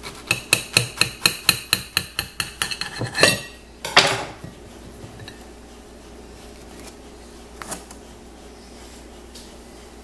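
Table knife sawing through a sandwich, its blade clicking against the ceramic plate about four or five times a second for about three seconds, each stroke ringing. A single louder clink of knife on plate follows about four seconds in.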